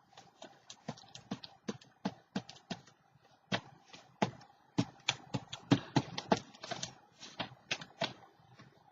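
Irregular series of short, sharp taps and clicks, a few a second, from craft materials being handled and set down on a desk.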